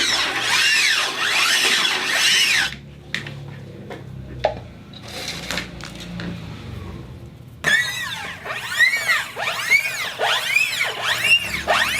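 Turntable in motion, making a regular train of pitched sweeps that rise and fall in pitch, about one and a half a second. They stop for about five seconds, leaving a few light knocks, then start again.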